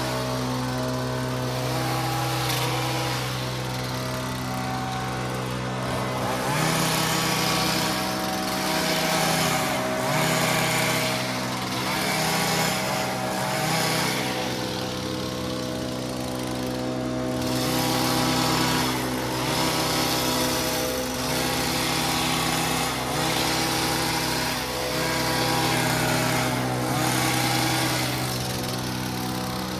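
Small gasoline engine of lawn-care power equipment running, its pitch stepping up and down again and again as it is throttled and loaded during cutting.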